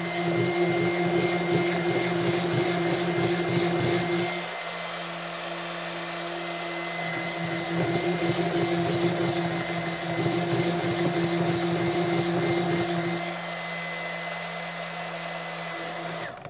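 Waring stick blender running in soap batter, blending green colorant into it, its motor pitch holding steady. The churning gets louder and softer in turns as the blender works through the batter, and it switches off just before the end.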